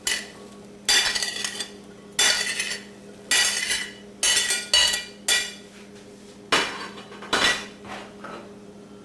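A utensil scraping and clinking against a dish in about ten quick, uneven strokes as shelled edamame is scooped into a salad bowl.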